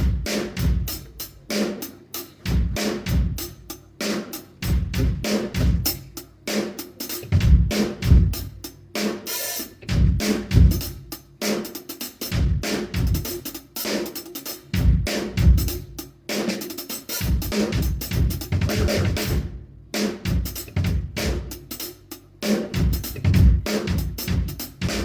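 Full acoustic drum kit played in a steady groove, with kick drum, snare, hi-hat and cymbals, and a short break about three-quarters of the way through. The kit is being played for a sound check so the engineer can set its levels.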